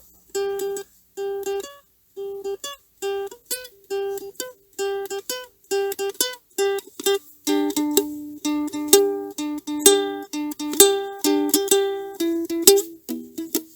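Instrumental passage on a plucked string instrument: short notes picked on one repeated pitch in a steady rhythm, joined by a lower note line about halfway through.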